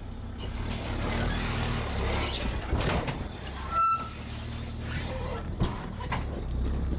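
Sherp all-terrain vehicle's diesel engine idling with a steady low hum. A short high beep sounds about four seconds in.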